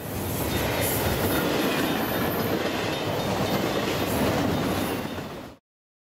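A freight train rolling past, its cars running steadily on the rails. The sound stops quickly about five and a half seconds in.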